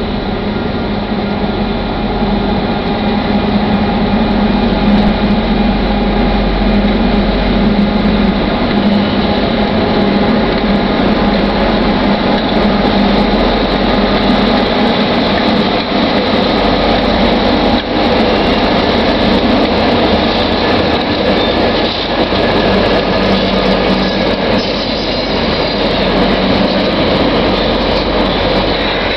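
Two DC-class diesel-electric locomotives hauling a coal train as it approaches: a steady engine drone with a strong low hum, getting louder over the first few seconds.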